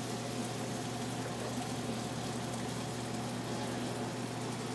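Steady kitchen stove background: a low, even hum with a faint hiss, from the gas burners and the gravy cooking on them.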